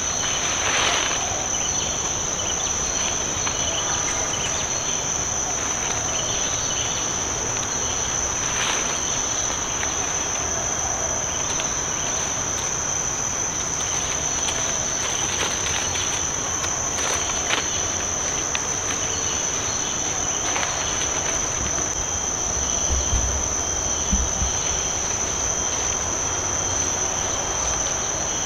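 Insects in full chorus, giving one steady high-pitched shrill, with a few soft low bumps about three-quarters of the way in.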